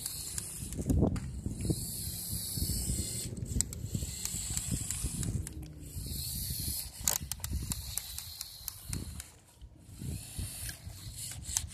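Motorised Lego Technic dragster driven by a single Power Functions XL motor, its plastic gears whirring and clattering as it rolls over rough asphalt, with many small clicks and a high hiss that comes and goes.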